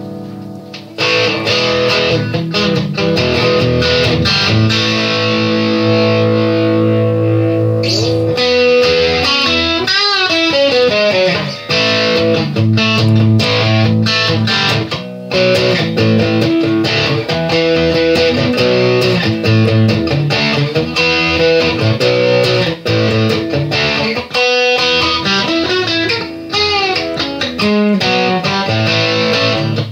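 Background music led by an electric guitar with effects, playing a melodic line with bent notes.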